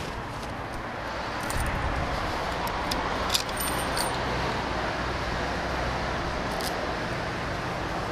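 Keys jingling with sharp metallic clicks, over the low steady idle of a Yamaha Super Ténéré 1200's parallel-twin engine, which comes up about a second and a half in.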